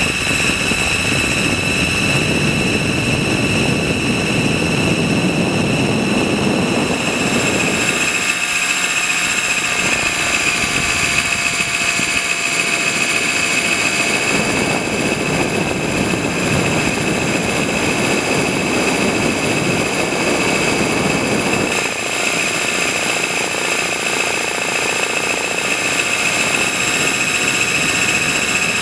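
Trex 600 RC helicopter heard from a camera mounted on its own landing skid: a steady high whine from the rotor drive, over a lower rushing noise that swells and fades as it flies.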